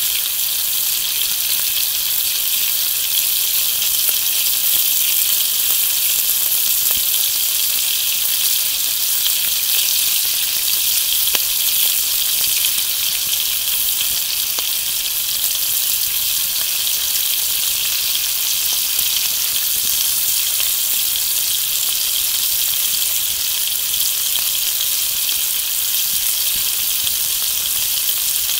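Bacon sizzling steadily in a skillet over an open wood fire, a constant frying hiss with the odd faint pop.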